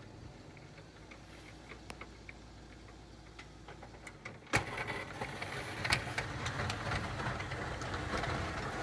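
Pickup truck with a front snowplow running as it pushes snow toward the listener, faint with scattered light clicks at first. About halfway through there is a sharp knock, after which the engine and the blade pushing snow get steadily louder as the truck closes in.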